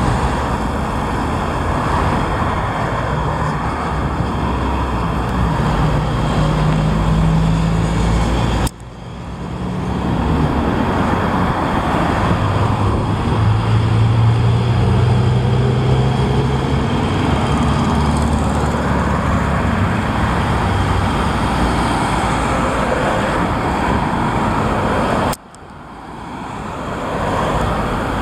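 Road traffic, with cars and trucks passing. A Scania refuse truck's diesel engine drones past in the middle, its hum the loudest part. The sound breaks off abruptly twice, about nine seconds in and near the end, and fades back up each time.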